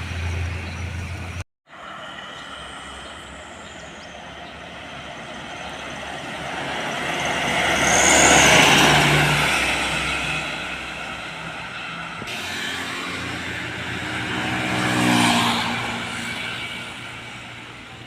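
Trucks passing by on a road, one after another. The first swells and fades about eight seconds in; the second goes by about fifteen seconds in, its engine note dropping in pitch as it passes.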